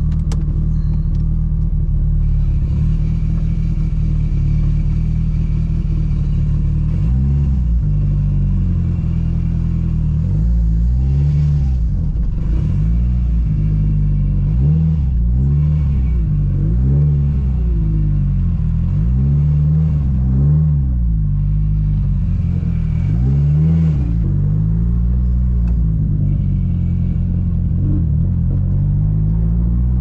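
Built Mitsubishi Lancer Evolution VIII's turbocharged 4G63 four-cylinder engine, heard from inside the cabin. It runs steadily at first, then rises and falls in revs over and over as the car moves off at low speed, and climbs again near the end.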